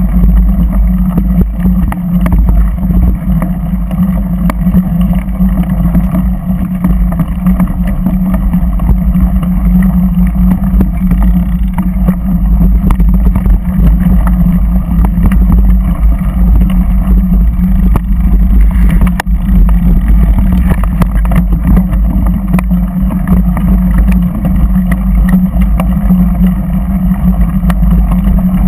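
A vehicle engine running steadily at an unchanging pitch, with frequent knocks and rattles as the vehicle rides over the rough dirt track.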